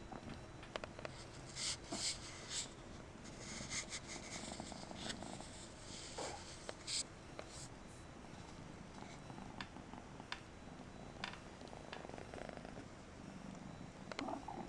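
Persian kitten purring steadily, with sharp taps and brief scratchy rustles of its play, most of them in the first half.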